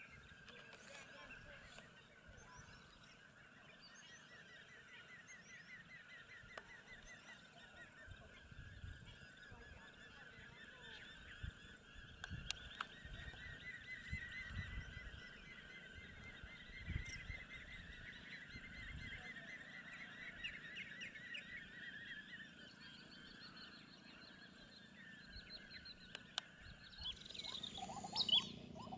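A flock of birds calling continuously in a dense chatter of rapid, repeated honking notes, with low gusts of wind on the microphone in the middle.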